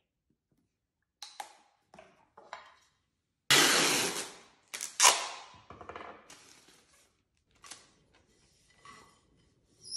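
Clear adhesive tape pulled off its roll with two loud rips, the first about three and a half seconds in and fading over a second, the second about five seconds in. A few short soft noises come before, and light scattered knocks follow.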